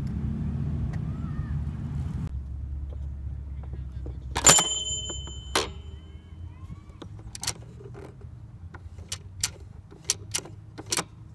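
Sharp clicks of a plastic toy engine-shed playset being worked by hand, over a low steady hum. About four and a half seconds in comes the loudest click, with a ringing like a small bell. Quicker clicks follow near the end.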